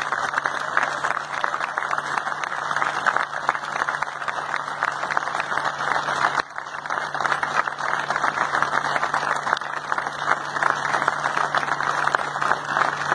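A crowd applauding, many hands clapping together in a dense, steady ovation, with a brief dip about six and a half seconds in.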